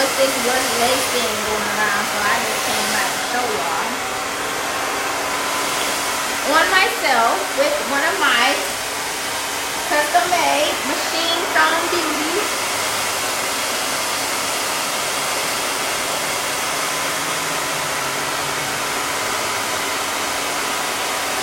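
Handheld blow dryer running steadily, an even rush of air with a faint hum in it. Faint voices come and go over it around six to twelve seconds in.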